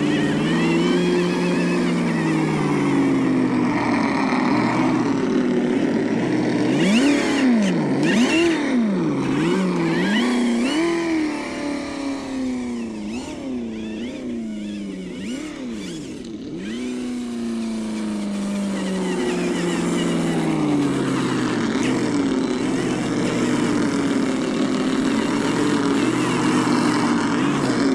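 Simulated engine sound from an ESS-One sound unit on a 1/10 scale RC crawler, its pitch following the throttle. From about seven to eleven seconds in it revs up and down in quick blips, then settles to a quieter, steadier note before building again.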